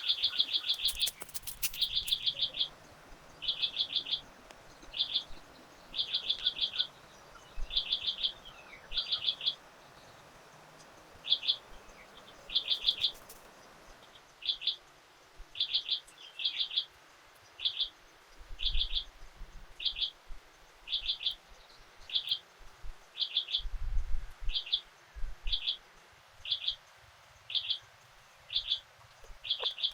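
A bird calling over and over, each call a quick burst of three or four high chirps, repeated about once a second.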